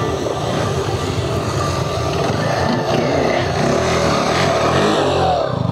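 KTM Adventure motorcycle's single-cylinder engine revving as the bike rides past on the dirt course. Its pitch rises and falls, strongest from about halfway through.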